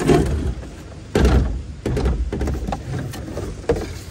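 Hollow plastic toy food truck knocking and scraping against a plastic wheelie bin as it is pulled out: a few dull thumps, the loudest about a second in.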